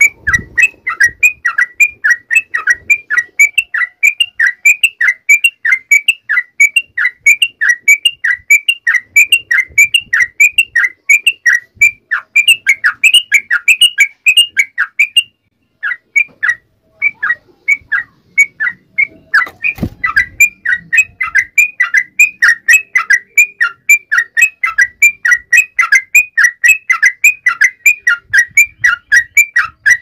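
Yellow-vented bulbul (trucuk) calling: a fast, even run of short chirping notes, about three or four a second, with a brief break about halfway through.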